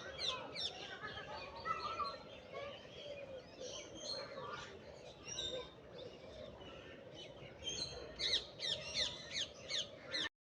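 A chorus of many small aviary birds chirping and calling over one another in short, quick notes, with a busier run of rapid chirps near the end before the sound cuts off suddenly.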